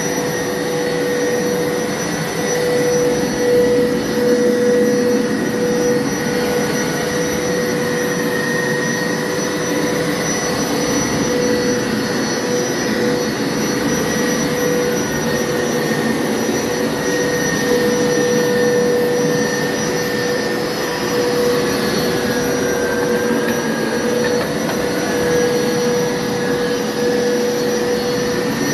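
Hoover carpet washer's motor running steadily, with a steady hum and a high whine, in rinse mode on the carpet. The pitch wavers a little throughout.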